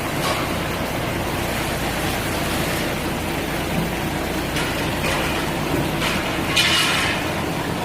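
Mandarin sorting and grading line machinery running steadily, with a few louder rattling surges near the middle and end.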